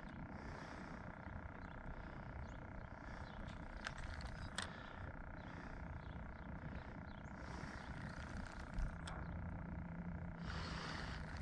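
Quiet outdoor background: a steady low rumble with a faint constant hum, broken by a few faint clicks.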